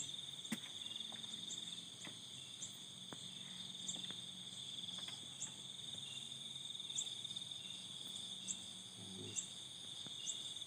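Crickets and other insects chirring steadily in a continuous high trill, with a short higher chirp repeating about once a second.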